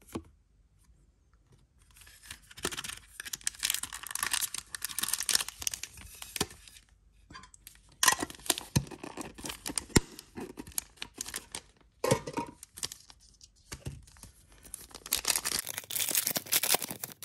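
Crinkling of a foil trading-card booster pack as it is handled, then a few sharp clicks from a small metal tin around the middle. Near the end the pack's foil wrapper is torn open with a dense run of crinkling.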